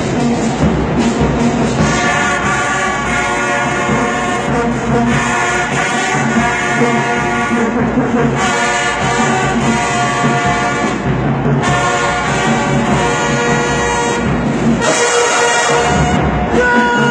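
High school marching band playing, its brass section sounding loud phrases separated by short breaks.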